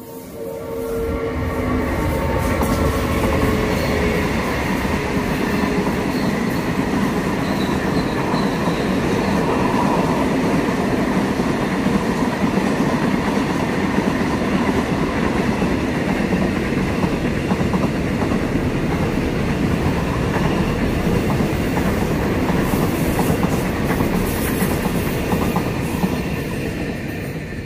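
A diesel-electric freight train led by a CSR locomotive passes close by, hauling a long line of container flat wagons whose wheels rumble over the rails. The sound builds up over the first couple of seconds, then stays loud and steady.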